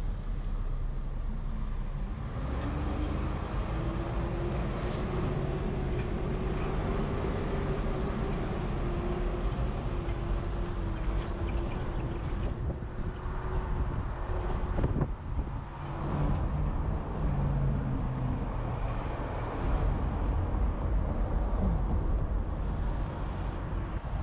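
Ford Mustang convertible driving with the top down: steady engine and road noise with wind rushing past. The engine note rises about two seconds in and holds steady, then drops briefly about fifteen seconds in before the car carries on.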